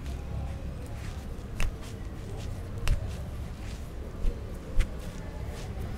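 Sharp hand strikes from an arm massage: four short cracks, unevenly spaced, over a steady low hum.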